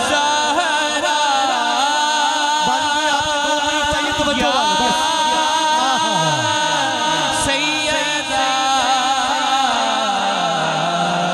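Men singing a devotional chant through microphones and a sound system: a lead voice carries a winding melody while other voices hold a steady note beneath.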